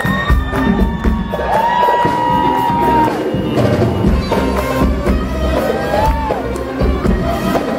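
Live Arabic band music played loud over a concert PA, with a steady low drum beat under high held melodic notes that slide up into pitch.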